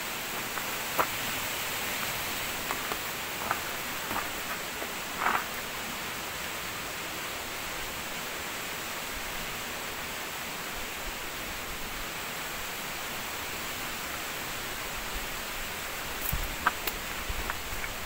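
Steady rushing of a small waterfall, with a few short clicks and rustles in the first few seconds and again near the end.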